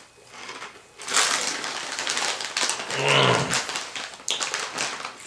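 A man's long, low moan of pleasure, loudest about three seconds in, mixed with the crisp crunching of Cheetos Crunchy corn snacks being chewed.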